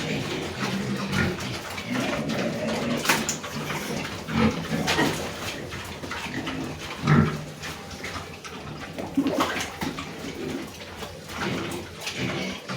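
Pigs grunting and eating, with irregular sharp crunches.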